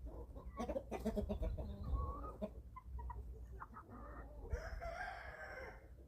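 Young chickens, about eleven weeks old, clucking and calling while feeding, with a few sharp clicks in the first second and one longer call about four and a half seconds in.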